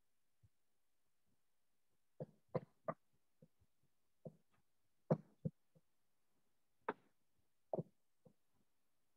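About a dozen sharp clicks and light knocks at irregular intervals over quiet room tone, the loudest about five seconds in.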